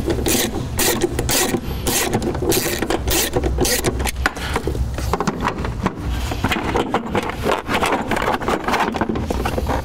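A screwdriver prying at plastic retainers and a plastic cover panel being worked loose: an irregular run of sharp plastic clicks and scrapes, several a second.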